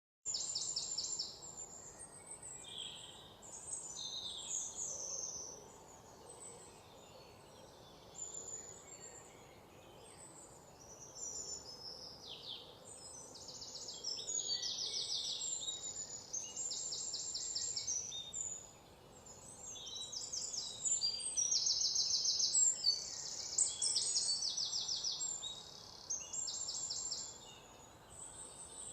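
Cockatiels calling and chattering: many high, buzzy, rapidly trilled calls, several birds overlapping, busiest and loudest a little past the middle.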